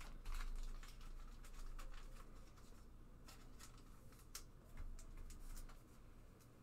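Faint, irregular clicks and light rustles of trading cards and their packaging being handled.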